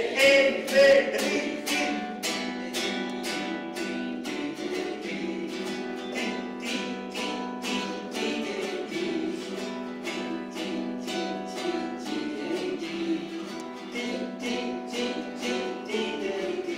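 Nylon-string classical guitar strummed in a steady rhythm, about two strokes a second, with a man singing along.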